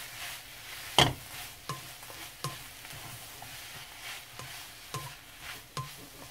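Chwinamul (aster greens) being stir-fried in perilla oil in a wok, tossed with wooden chopsticks: a low sizzle with repeated sharp knocks of the chopsticks against the pan, the loudest about a second in.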